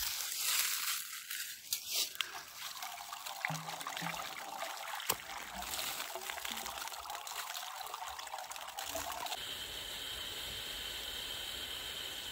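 Water poured from a plastic pot into an irrigation pump's suction hose to prime it, splashing and trickling. About nine seconds in it settles into a steadier hiss.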